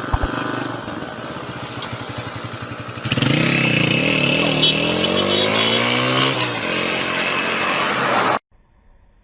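An engine revving: after a few seconds of rumbling noise, a loud pitched drone wavers and then climbs steadily in pitch, and the sound cuts off abruptly near the end.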